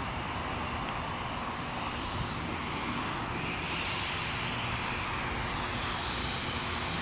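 Aircraft engine noise: a steady, even drone with no sharp events.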